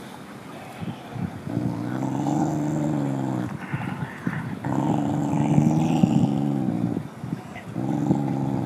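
A mother dog growling low in her throat over a bone she is chewing, three long growls with short crunching clicks of chewing between them. The growl is a warning to another dog not to come near her food.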